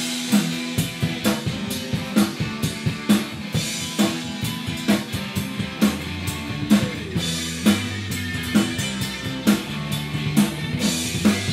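Live rock band with a drum kit coming in all at once at full volume, the drums keeping a steady beat of about two hits a second. A bass line joins about halfway through.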